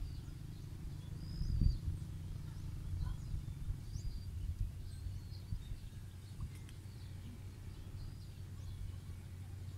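Birds chirping: scattered short, high calls over a steady low outdoor rumble, with a low bump about a second and a half in.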